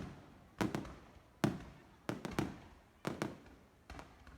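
Aerial fireworks shells bursting in quick, irregular succession, about eight bangs in four seconds, each followed by a fading echo.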